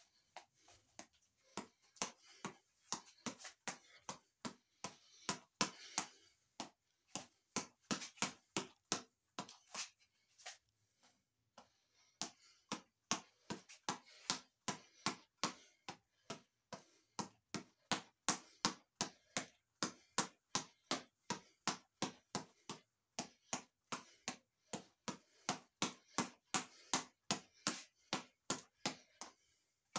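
A boxing reflex ball on a headband elastic being punched rapidly, a quick run of sharp slaps about three a second, with a brief pause about ten seconds in.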